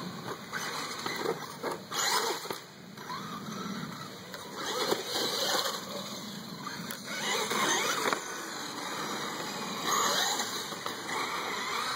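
Brushless electric motor of a Traxxas E-Maxx RC monster truck running, its whine rising and falling several times with the throttle as the truck drives over pavement and grass.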